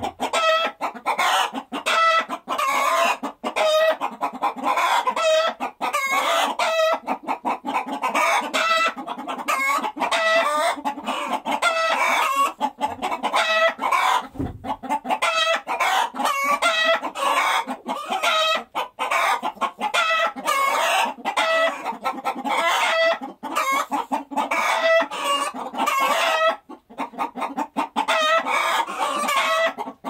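Hens clucking and cackling, short calls following one another almost without a break.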